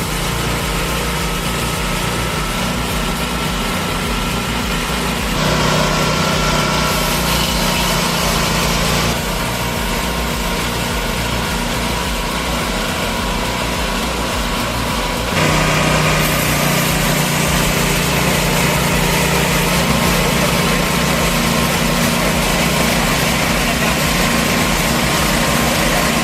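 A small engine running steadily on an engine-powered wood-cutting saw. Its sound changes abruptly a few times, about five, nine and fifteen seconds in.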